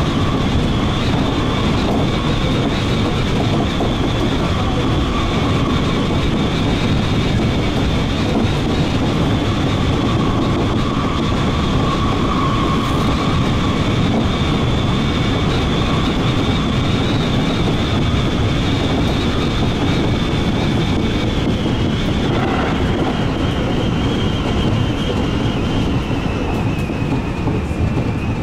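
Seibu 2000 series electric commuter train running at speed, heard from on board: a steady rumble and clatter of wheels on rail under a high whine. The whine falls in pitch over the last few seconds.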